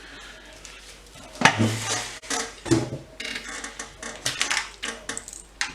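Irregular knocks, clicks and clatter of small hard objects being handled on a workbench as a small circuit board is hooked up to a test rig. It begins about one and a half seconds in with the loudest knock, a dull thud, then carries on in scattered clicks.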